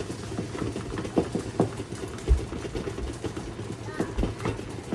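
Water-bath canner at a hard rolling boil, with irregular knocking and sputtering as the jars rattle and the water splashes over. Two heavier low thumps, one a little past two seconds in and one near four seconds.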